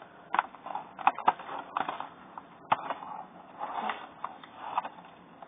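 Quiet, irregular light clicks and scratchy rustling against a clear plastic tub.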